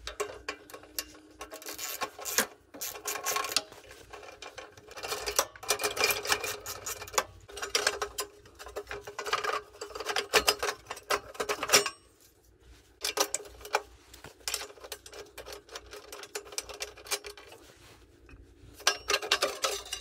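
Socket ratchet clicking rapidly in repeated bursts as bolts are backed out of a snowblower's engine shroud, with a short pause about two-thirds of the way through.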